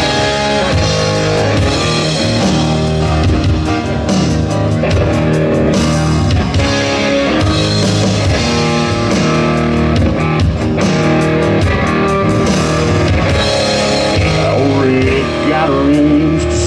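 Live country-rock band playing an instrumental break: guitars over a drum kit keeping a steady beat, with bending guitar notes near the end.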